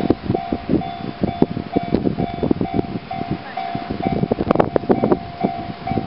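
Japanese railway level-crossing warning bell ringing its repeating electronic clang about twice a second, the barrier down before a train arrives. Irregular short knocks and crackles sound over it.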